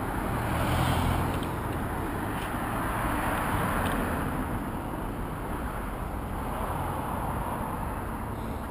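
Car traffic passing close by, tyre and engine noise swelling and fading as each car goes past, over a steady low rumble of road traffic.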